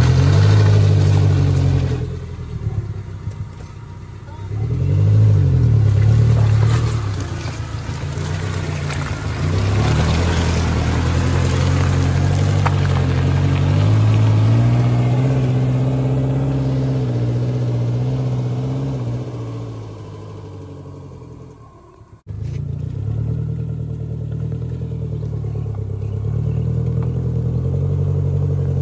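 Maruti Suzuki Gypsy's four-cylinder petrol engine revving up and down under load as the 4x4 claws at a steep, slippery mud climb, wheels spinning and throwing mud. The engine note cuts out suddenly about 22 seconds in, then returns as a steadier run.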